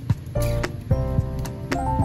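Background music with held chords and a regular drum beat.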